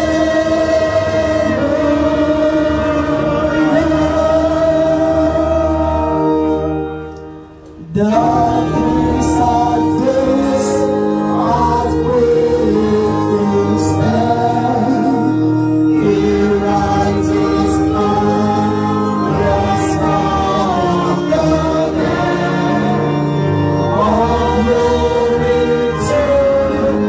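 A choir and congregation singing a gospel hymn together, with a woman singing into a microphone. The singing fades off about six seconds in and comes back abruptly about two seconds later.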